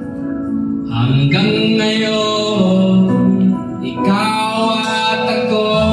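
A man singing a Tagalog song into a karaoke microphone over a backing track, holding long notes, amplified through the room's speaker.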